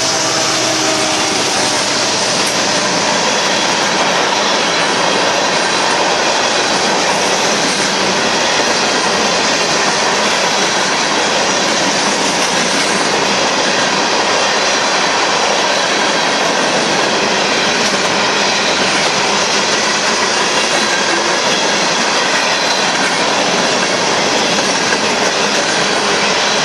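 Coal hopper cars of a BNSF freight train rolling past at speed, their steel wheels on the rails making a loud, steady rush that does not let up.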